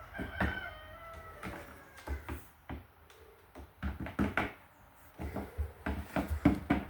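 Pet chicken giving a short soft call near the start, then pecking at food: a run of sharp taps that grows busier in the second half.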